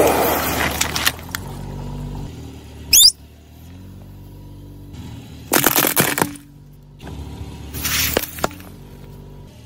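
A car tyre rolling over and crushing objects one after another, a plastic Coca-Cola bottle with a balloon, rubber toys and a liquid-filled ball that bursts and splashes. It makes sudden crunches and pops near the start, about three seconds in, around six seconds and around eight seconds, over a low steady hum.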